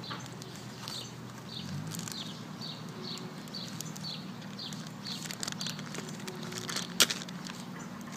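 A small bird calling over and over in short, high, falling chirps, about two a second, over a low steady hum. A single sharp click about seven seconds in is the loudest sound.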